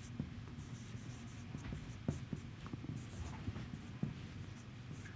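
Marker pen writing on a whiteboard: a faint run of short scratchy strokes and light taps as the symbols of an equation are written.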